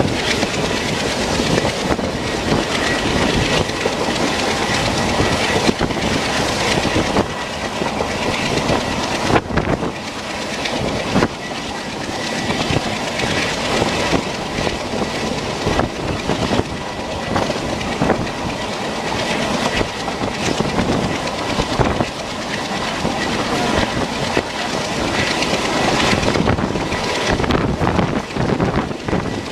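Express passenger train running at speed, heard through an open coach window: wheels clattering over rail joints over a steady rushing of track and air noise, with a faint steady high whine.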